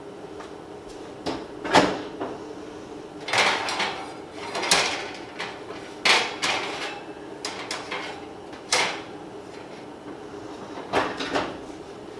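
Oven door and metal baking tray: a series of clunks and clatters, about eight in all, as the tray of cinnamon rolls is slid onto the oven rack and the oven door is opened and shut.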